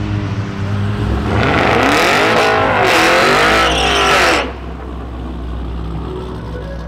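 A car's tyres squealing for about three seconds over a running engine, with a wavering pitch, cutting off sharply; after that the engine goes on with a steady low rumble.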